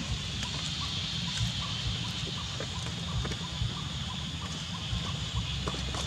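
Outdoor ambience: a steady high hiss over a low rumble, with scattered faint ticks and short chirp-like calls.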